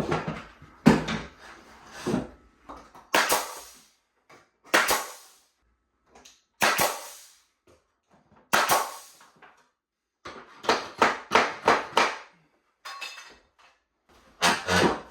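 Sharp knocks and hammer blows on a wooden ceiling board, about a dozen irregular strikes with a quick run of five or six a little after the middle, as a too-long board is worked loose to come down.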